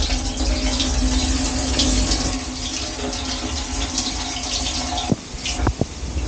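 Dishwasher wash cycle: water spraying and splashing inside the tub, over the steady hum of the circulation pump. About five seconds in, the spray drops away briefly and a few short knocks follow.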